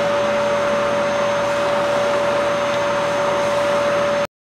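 Canister vacuum cleaner running steadily with a constant whine, its brush nozzle being drawn over a cat's fur. The sound cuts off abruptly near the end.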